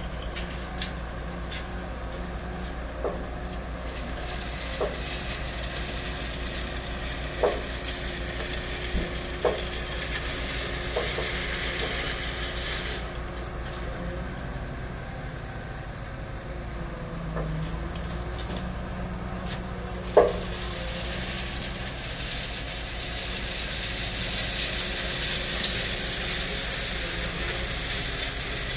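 Diesel engines of crawler-tracked TL 70 turnout-laying machines running steadily, with a hiss over them for the first thirteen seconds and again from about twenty-two seconds. Occasional sharp knocks sound over the running, the loudest about twenty seconds in.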